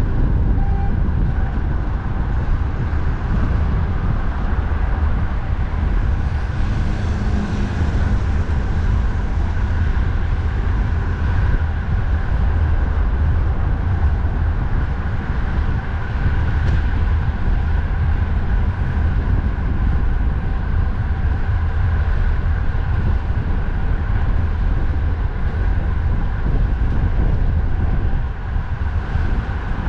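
Steady low rumble of strong wind on the microphone mixed with the continuous noise of traffic while riding along a highway.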